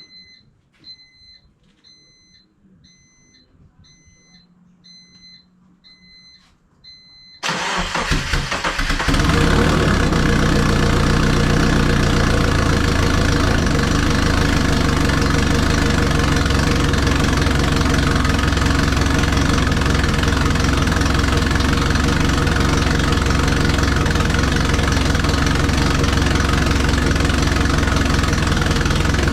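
A repeating electronic chime beeps about every 0.8 s. Then, about seven and a half seconds in, the twin-turbo Subaru Forester's EJ20 flat-four cranks and fires, and it settles into a steady idle.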